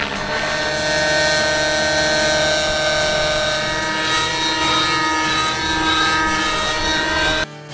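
Radio-controlled model helicopter in flight: a steady whine of its engine and rotor, made of several held tones. The sound drops away abruptly near the end.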